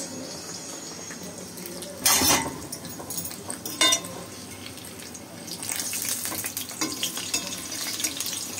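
Chebureki frying in hot oil in a metal pan, sizzling, with forks clinking on the pan as a pastry is turned. A loud clatter comes about two seconds in and a ringing metal click near four seconds, and the sizzle grows louder over the second half.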